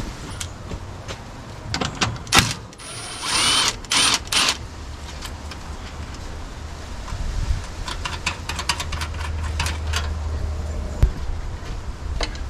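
Cordless drill-driver spinning in three short bursts, one with a whine that bends in pitch. It is followed by a quick run of light clicks over a low steady hum.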